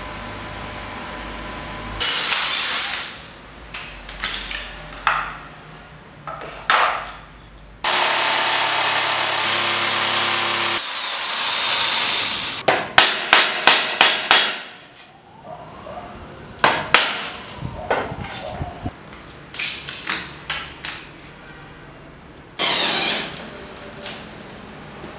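Power-tool work on wooden boards: a tool runs in several short, stop-start bursts, then steadily for about three seconds. A quick string of sharp knocks and scattered taps follows, and near the end a cordless drill bores briefly into the wood.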